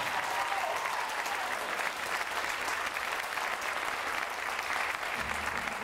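Theatre audience applauding steadily as the song ends.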